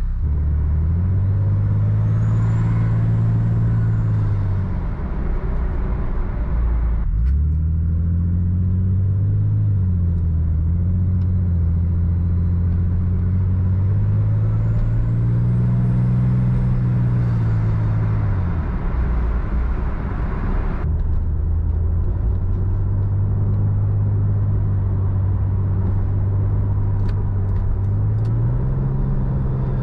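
Toyota Supra MK4's 2JZ 3.0-litre straight-six engine pulling through the revs. Its pitch climbs and falls several times, with a sudden break about a quarter of the way in and another about two-thirds of the way through, as at a gear change or a lift off the throttle.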